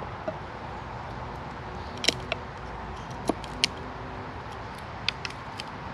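Wood being worked by hand to cut a hole in it: scattered sharp clicks and light taps of the tool on the wood, about eight spread irregularly over several seconds, over a steady background hiss.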